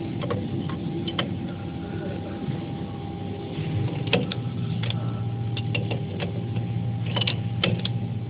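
Steel open-end spanners clinking against a CNC router's spindle and collet nut as the cutter is changed, in several sharp irregular clicks. Under them runs a steady machine hum, whose low part grows louder about four seconds in.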